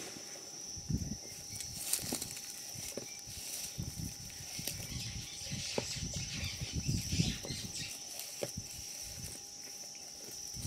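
Baby black rhino moving about in sawdust: soft, irregular rustling and scuffing with occasional light thumps and clicks, over a faint steady high-pitched whine.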